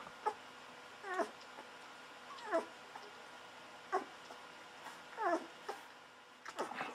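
Newborn golden retriever puppy squeaking while suckling from a feeding bottle: a series of short squeaks that slide down in pitch, about one every second and a half.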